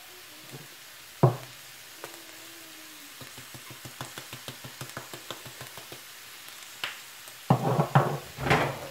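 Bell peppers and onions frying quietly in a pan. About a second in comes a sharp knock, then a quick run of clicks for about three seconds, and louder knocking and clatter near the end.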